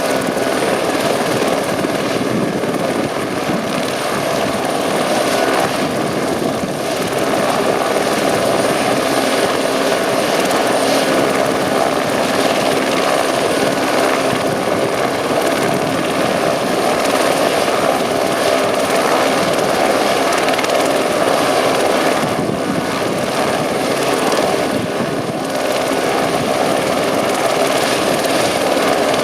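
Eurocopter AS350 Écureuil helicopter running close by: steady rotor noise with a high turbine whine, holding at a roughly even level throughout.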